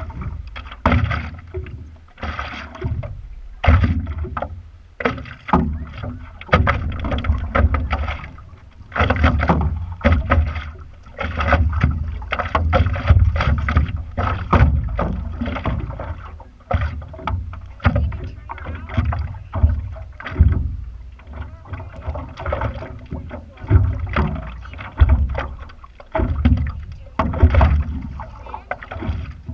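Lake water slapping and splashing against the nose of a stand-up paddleboard right beside a board-mounted action camera, coming in uneven surges about once a second, with paddle strokes in the water.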